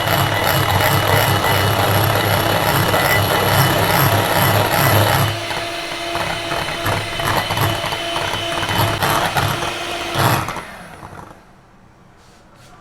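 Electric mixer running while beating egg yolk: a steady motor whir with the beaters churning the bowl. Its sound shifts about five seconds in, then it stops about ten and a half seconds in.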